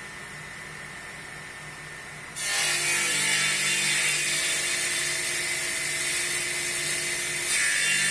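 Table saw running free, then about two and a half seconds in its spinning blade starts ripping a strip of wood lengthwise with a loud, high hiss that carries on steadily and grows a little louder near the end.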